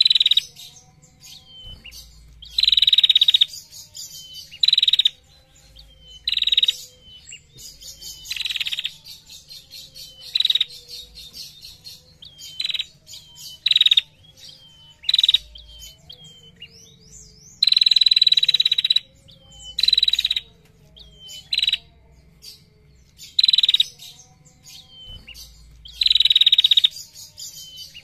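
Female prenjak (prinia) calling: loud, buzzy rattling trills ('ngetir'), each from half a second to about one and a half seconds long, repeated every one to two seconds, with fainter short chirps between.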